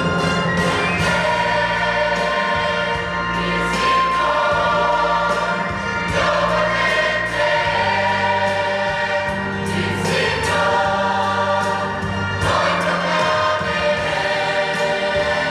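A mixed choir of young men and women singing a Christian song, with long held notes.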